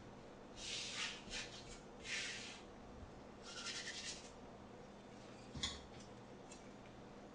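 Hands rubbing and crumbling a dry, shaggy flour-and-egg pasta dough against a stainless steel counter, a soft gritty rustle in three short bouts. A single sharp knock comes about five and a half seconds in.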